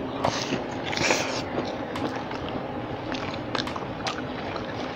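Close-miked biting and chewing of crispy battered, deep-fried banana-blossom strips: irregular crunches and wet mouth clicks, the loudest about a second in.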